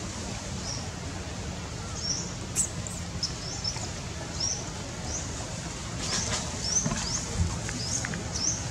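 A small bird calling: short, high chirps, each rising quickly in pitch, repeated about once or twice a second over a steady low background hum.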